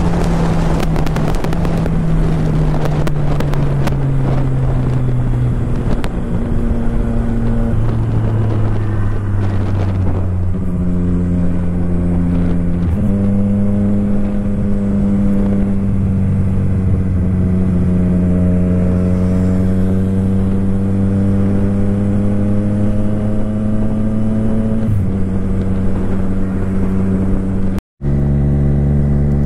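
Triumph Street Triple 765 RS's three-cylinder engine running under way. Its note holds fairly steady, with a slow fall over the first few seconds and a few sudden shifts in pitch later on. Wind rushes over the microphone at first, and the sound cuts out for an instant near the end.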